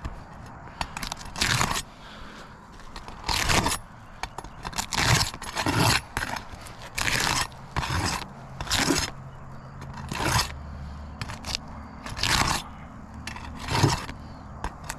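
A roofing tool scraping and crunching under old asphalt shingles as they are lifted to reach the nails, in repeated strokes about one a second.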